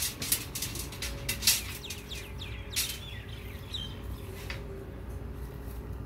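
Sharp metallic clicks and clinks of steel rebar and binding wire being handled and tied on a pile reinforcement cage, busiest in the first three seconds. A bird chirps a few times near the middle.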